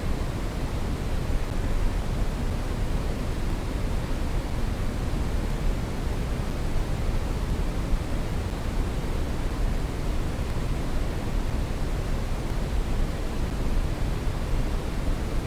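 Brown noise: a steady, even hiss that is strongest in the bass and falls away toward the treble, with no changes or events.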